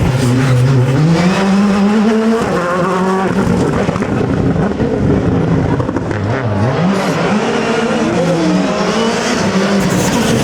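Rally car engine driven hard, loud throughout. The revs climb, drop sharply about two seconds in, then fall and rise several more times through the rest of the stretch.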